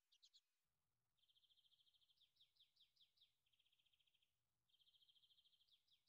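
Faint songbird singing: rapid even trills alternating with runs of quick down-slurred chirps, in several phrases with short pauses between.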